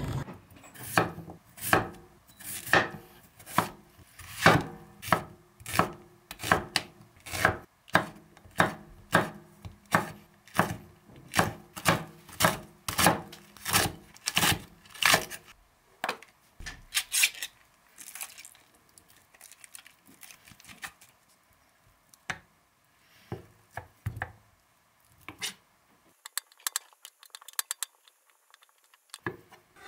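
Chef's knife chopping green onion on a wooden cutting board, in even strokes about two a second. From about halfway, fewer and softer knife taps as canned ham is cut up on the board.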